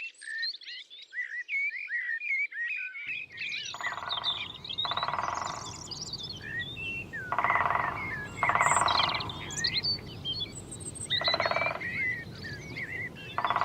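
Small birds chirping and singing, and from about four seconds in, a frog's pulsed croaks: short rattling trains that come in pairs every few seconds. A low steady background rumble starts about three seconds in.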